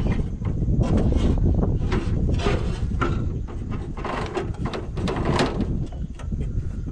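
Scraping, rubbing and knocking from hand work on a loader engine's fan and drive belts, a run of short irregular strokes over a low steady rumble.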